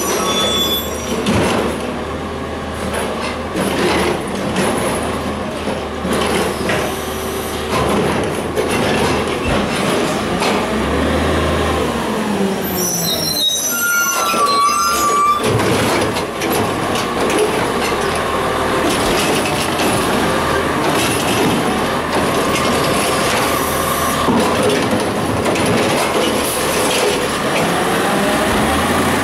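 CCC LET2 garbage truck's diesel engine running as the truck pulls up and stops. About halfway through, its squeaky brakes give a high squeal as it comes to a halt.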